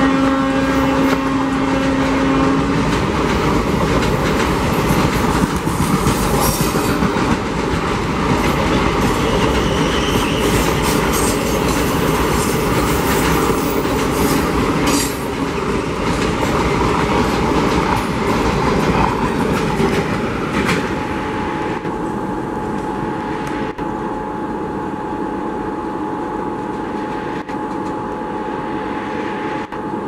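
Express passenger train's coaches rushing past at speed, with a steady clatter and rumble of wheels over the rails and occasional sharp clanks. The WAP-4 electric locomotive's horn sounds continuously at the start and stops about two seconds in. The rush eases after about twenty seconds as the train draws away.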